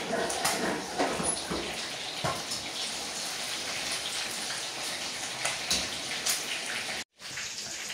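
Chicken pieces deep-frying in hot oil: a steady sizzle with scattered crackles, breaking off for a moment near the end.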